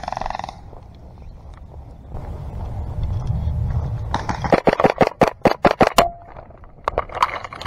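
A quick string of about ten sharp airsoft gun shots, roughly six a second, then a few more shots near the end, over rustling movement on dry ground.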